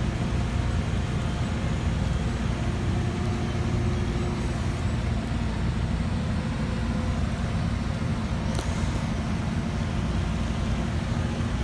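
Heavy diesel construction machinery running steadily with a low drone, with one brief high squeal about eight and a half seconds in.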